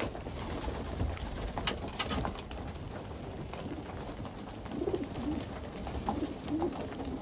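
A flock of domestic pigeons crowding together to feed: repeated low cooing in the second half, over a rustle of flapping wings, with a few sharp clicks, the loudest about two seconds in.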